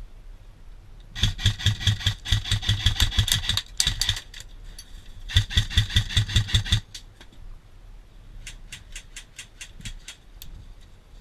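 Airsoft rifle firing on full auto: two long bursts of rapid, evenly spaced shots, the first about three seconds long and the second about a second and a half. Near the end a lighter string of about ten shots follows at a slower pace.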